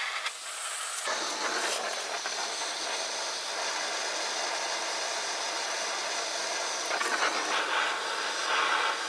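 Gas torch flame burning with a steady hiss, starting about a second in, as it heats a rusted broken-off stud toward red hot to loosen the rust bond.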